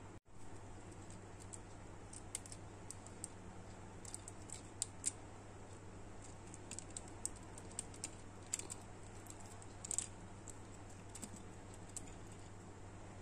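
Small plastic clicks and taps from a D-Arts Zero action figure's joints and parts being handled and worked apart, with a few sharper clicks scattered through, over a low steady hum.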